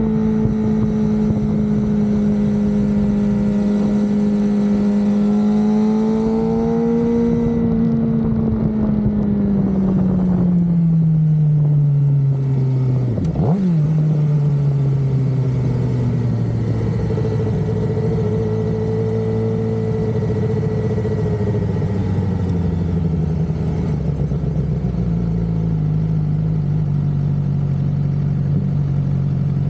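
Suzuki GSX-R600 inline-four engine under way with wind rushing past. Its note holds steady, then falls as the bike slows, with a quick rev blip on a gear change about halfway through. It then settles into a lower, steady note.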